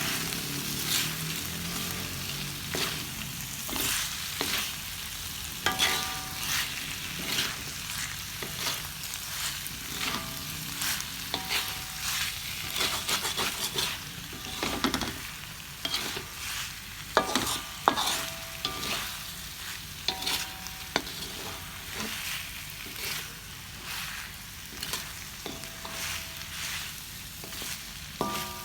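Beef and potatoes sizzling in hot oil in a pan while being stirred, with frequent scrapes and knocks of a metal utensil against the pan, some of them ringing briefly.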